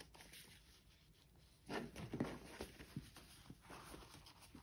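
Faint rustling and handling of paper and card as a needle and waxed linen thread are worked through the punched holes of a journal signature and its spine. There is a louder rustle about two seconds in, then light ticks and rustles.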